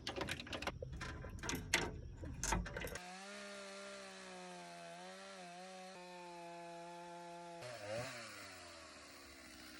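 Irregular knocking and clatter for about three seconds, then a sawmill's engine running steadily with a hum, its pitch dropping sharply near the end as it slows down.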